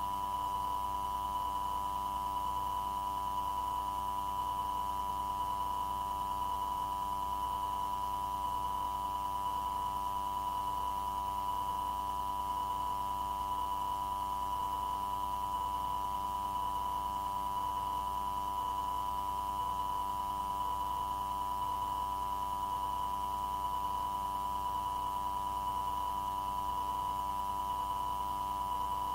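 A steady electronic tone with a faint hum under it, unbroken and unchanging, on the tower radio recording between transmissions.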